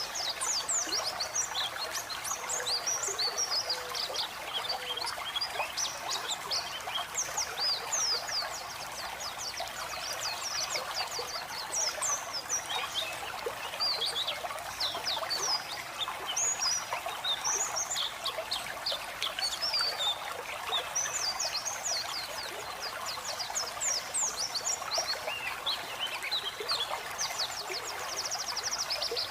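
White-eyes (pleci) singing a continuous stream of rapid, high chirps and twitters, with a fast trill near the end, over a steady sound of running water.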